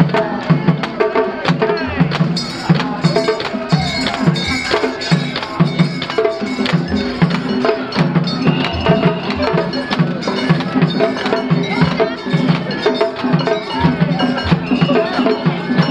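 Japanese festival hayashi music: taiko drums beating a steady, quick rhythm with a bright metallic clang of a small hand gong over it.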